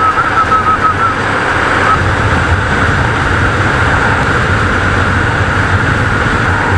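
KTM RC390's single-cylinder engine under way at steady road speed, its running mixed with rushing wind noise on the rider's microphone.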